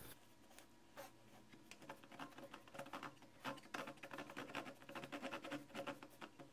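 Small hand-held saw blade scraping back and forth across thin laser-cut wooden pins to trim them flush: a run of faint, short rasping strokes, several a second. The builder suspects the blade has too many teeth for the job.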